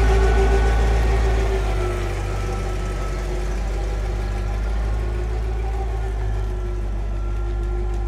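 Engine of a heavy-capacity forklift running under load as it carries a 16,000 lb machine on its forks: a steady low rumble with a constant hum over it, easing a little in loudness about two seconds in.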